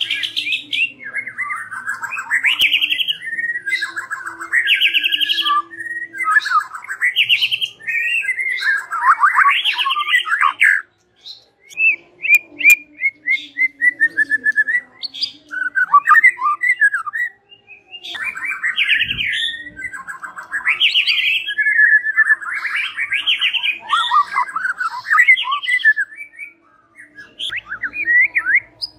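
White-rumped shama (murai batu) singing: loud phrases of rapid trills and sliding whistled notes, broken by two short pauses.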